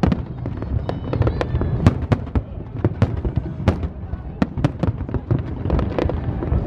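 Aerial fireworks shells bursting in quick, irregular succession: many sharp bangs and crackles over a steady low rumble.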